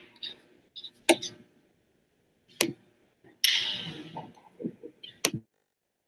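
Three sharp clicks, a second or two apart, with faint breathy hiss and low murmurs between them.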